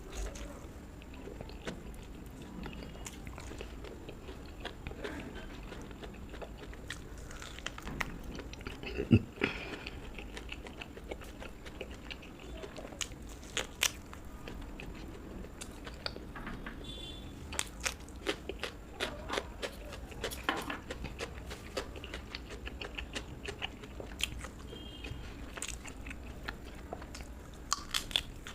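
A person chewing and biting crunchy fried food close to the microphone, with irregular sharp crunches between quieter chewing, one loud crunch about nine seconds in.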